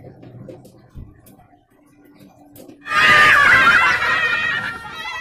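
Faint clicks and a knock from a small portable gas stove being lit. About three seconds in, a loud, high, quavering call takes over and ends in a wavering fall in pitch.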